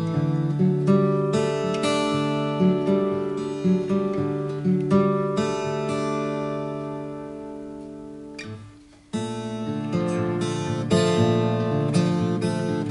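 Acoustic guitar played fingerstyle: picked melody notes over low bass notes. About halfway through, a chord is left to ring and fade out, there is a brief pause, and the picking resumes about nine seconds in.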